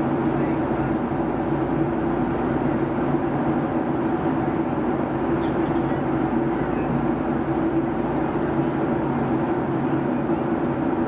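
Steady cabin noise inside a Boeing 757-200 in flight: rushing air and the constant low hum of its Rolls-Royce RB211 engines, with no change in level.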